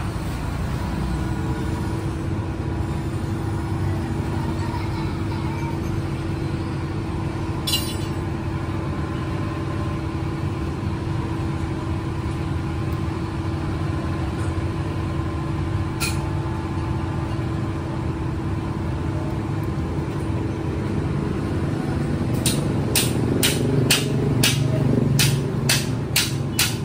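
A steady low machine hum with a constant tone. Near the end comes a quick run of sharp clicks, about two a second.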